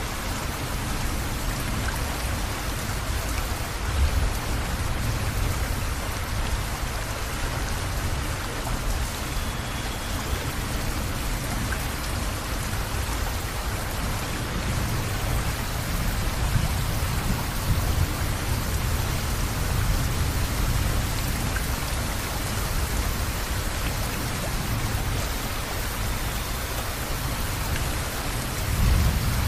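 Steady rain falling and pattering on surfaces, with low rumbles of thunder swelling up now and then, about four seconds in, in the middle and near the end.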